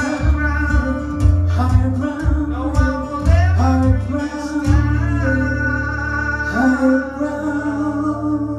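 Live singing with acoustic guitar: strummed chords under a sung melody, then about halfway through a final chord is left ringing under one long held sung note that slowly fades as the song closes.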